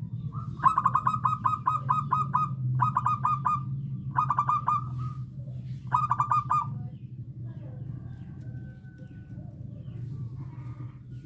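Zebra dove (perkutut) singing: four bursts of rapid staccato cooing notes, the first about two seconds long and the others under a second, over a steady low hum.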